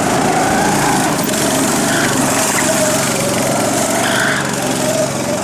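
Go-kart's small engine running, its pitch rising and falling over and over as the kart speeds up and slows through a cone slalom.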